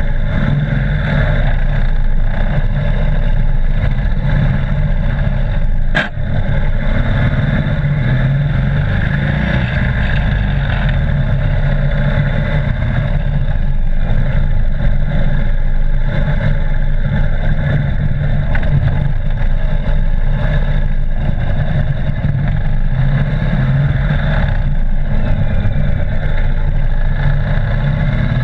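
Police motorcycle engine running, heard close from a camera mounted low on the bike, with a sharp click about six seconds in.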